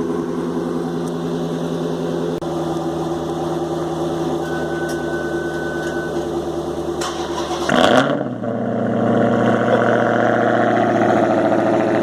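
A car engine idling steadily, then about 8 s in a Dodge Challenger Hellcat's supercharged 6.2-litre Hemi V8 fires up with a rising flare and settles into a louder, faster idle. The exhaust is very loud, which the owner takes for non-stock exhaust work.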